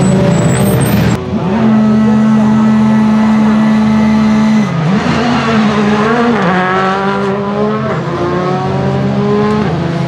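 Skoda Fabia rally car's turbocharged four-cylinder engine, held at steady high revs for about three seconds, then dipping and wavering before revving up again in several rising sweeps, like gear changes under acceleration. A different car's engine is heard for about the first second.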